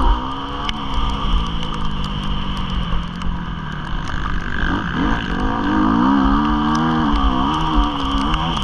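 Motocross bike engine heard from on board, its revs rising and falling. The pitch climbs about five seconds in and holds high before dropping near the end, over a steady rush of wind and track noise.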